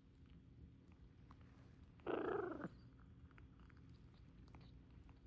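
A parrot lapping and tasting smoothie, its beak and tongue making faint scattered clicks, with one short, louder noisy sound from the bird about two seconds in that lasts about half a second.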